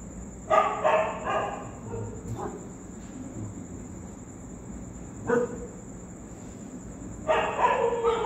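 Street dogs barking: a quick cluster of barks about half a second in, a single bark around the middle, and another run of barks near the end.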